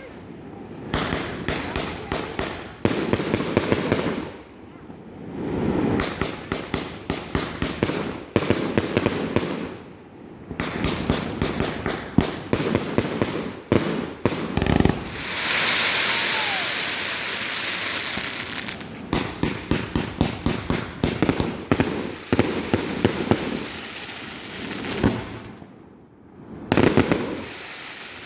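Fireworks display: rapid strings of sharp pops and bangs, going off in repeated salvos, with a steady hiss for a few seconds about halfway through.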